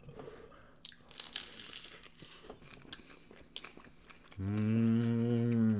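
A person chewing a mouthful of food, with scattered crunches and wet mouth clicks, then about four seconds in a long hummed "mmm" of enjoyment.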